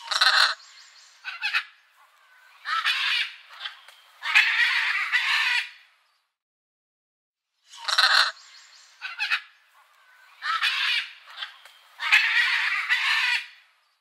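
Macaws squawking: a run of harsh, screechy calls, the last one long, and the same run repeats exactly about halfway through, as a looped recording does.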